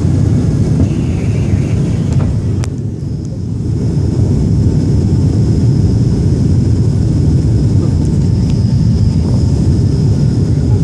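Airliner cabin noise during the climb after takeoff: the steady low rumble of the engines and airflow heard from a seat over the wing, with a thin steady high whine above it from about three seconds in.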